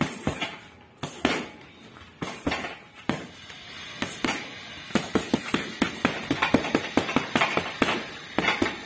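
Boxing gloves punching a hanging heavy bag: a few single blows and short combinations at first, then fast flurries of punches from about four seconds in.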